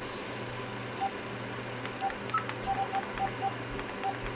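Clarity E814CC cordless phone handset giving short key beeps as its buttons are pressed one after another, about nine presses, quickening after about two seconds, with faint key clicks. Each press gets a beep, a sign that the repaired keypad is responding.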